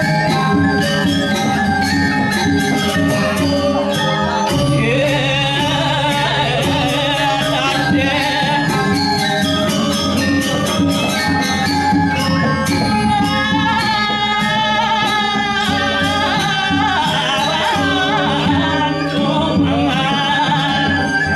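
Balinese gamelan playing at full volume: sustained bronze metallophone and gong tones under rapid, dense cymbal strokes, with a wavering high melody entering about five seconds in.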